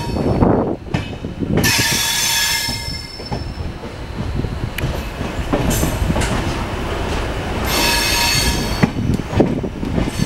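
Train coaches of the Chennai–Trivandrum Mail rolling through a station, heard close up from an open coach doorway: a steady rumble and clatter of wheels over the rails, with two spells of high-pitched wheel squeal, about two seconds in and again about eight seconds in.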